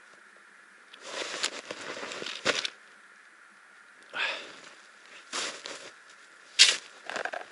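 Intermittent rustling and crackling of someone moving through forest undergrowth in stiff clothing, in several short bursts, with one sharp click near the end.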